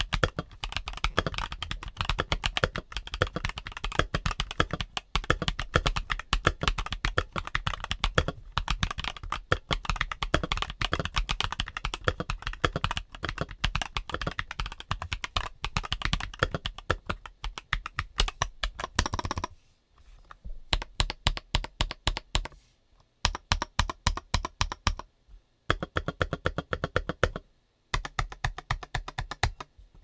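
Stock Mikit T80 mechanical keyboard with Gateron G Pro 2.0 Yellow linear switches and PBT double-shot Cherry-profile keycaps being typed on in a fast, steady stream of keystrokes. About two-thirds of the way through, the typing changes to shorter runs of key presses with brief pauses between them.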